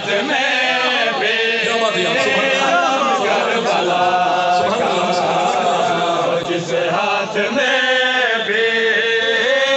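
A man chanting a Shia devotional recitation about Karbala into a handheld microphone, in long held, melodic lines.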